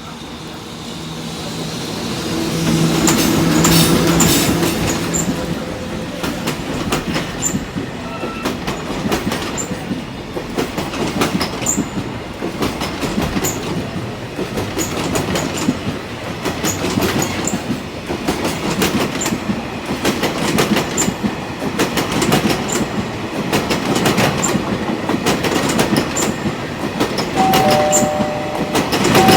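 Container freight train passing: the locomotive comes up with a rising rumble and a steady hum, then the wagons run by with a regular clickety-clack of wheels over rail joints. Near the end two steady tones sound together.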